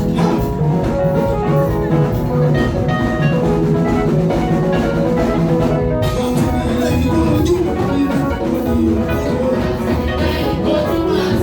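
Upbeat dance music with a drum kit keeping a steady beat under melodic pitched instruments.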